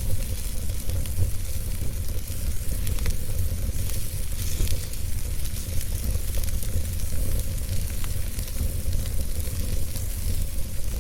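Wood fire burning: a steady hiss with frequent small crackles and pops scattered irregularly through it, over a constant low rumble.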